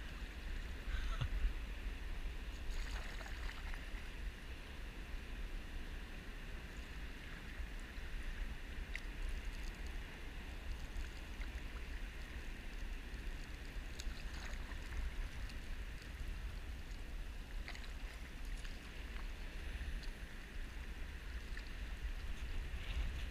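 Water lapping and trickling against a kayak hull, with a few faint drips and splashes from the paddle, over a steady low rumble of wind on the microphone.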